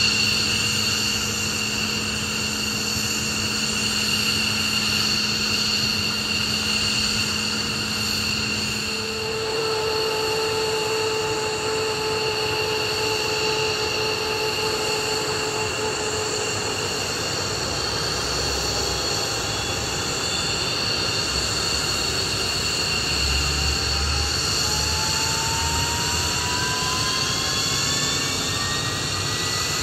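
F-15C Eagle's Pratt & Whitney F100 turbofan engines running with a steady high turbine whine. About nine seconds in, the lower hum under the whine shifts up in pitch. Over the last ten seconds a whine rises slowly as an engine spools up during start.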